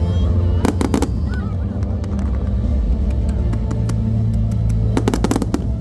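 Fireworks going off: a quick cluster of sharp bangs and crackles just before a second in, another about five seconds in, over a steady bed of music.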